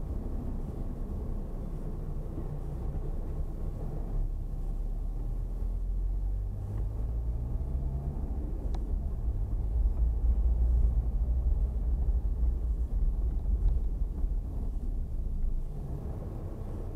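Car driving: a steady low engine and road rumble, with the engine note rising about six to eight seconds in and the rumble growing louder for several seconds after that.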